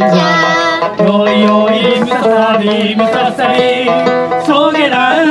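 Live Okinawan-style folk song: voices singing a verse over a handmade sanshin.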